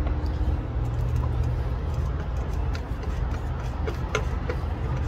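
Flat-blade screwdriver clicking and scraping against the head of a one-way screw as it is turned out of a metal panel, a few light clicks with more of them near the end, over a steady low rumble.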